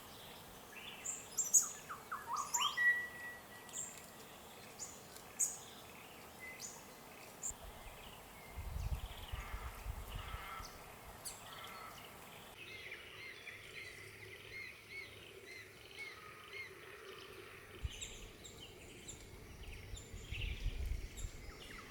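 Several birds chirping and calling in short high notes in eucalypt woodland, with a few sharp cracks in the first few seconds and occasional low wind rumble.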